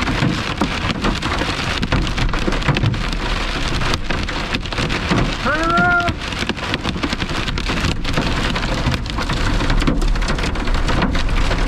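Heavy rain pelting a vehicle's windshield and roof, heard from inside the cab as a dense patter over a steady low rumble. A brief pitched sound rises and falls about halfway through.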